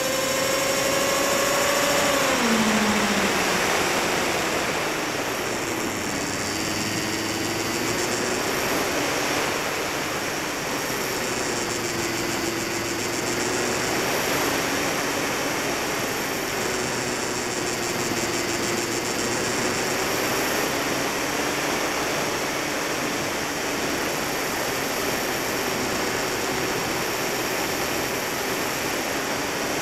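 Electric motor and propeller of a HobbyZone Firebird Stratos RC plane, heard from its onboard keychain camera: a steady whine drops in pitch about two seconds in as the motor slows, then carries on as a lower, wavering hum under a steady rush of wind.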